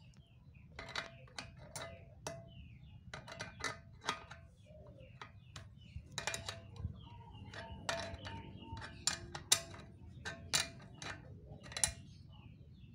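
Steel spanner clicking and scraping on a balance bike's rear axle nut as the nut is tightened: irregular sharp metal clicks, some with a short ring.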